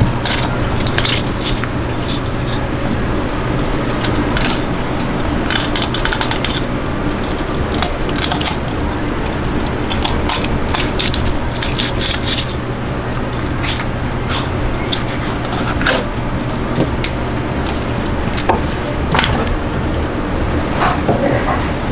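A long fish knife cutting through a large yellowtail's flesh and along its backbone, with irregular scrapes and clicks of the blade and the fish on a plastic cutting board. A steady low hum runs underneath.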